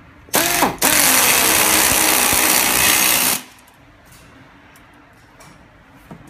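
Handheld power screwdriver driving a screw into an auditorium chair's back frame. It starts about a third of a second in, stops for an instant, then runs steadily for about two and a half seconds and cuts off.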